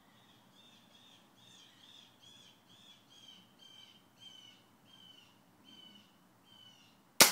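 A bird calls a run of about a dozen short repeated notes, roughly two a second, growing fainter. Near the end, a single sharp crack as the Hatsan Model 95 .22 break-barrel air rifle fires a pellet.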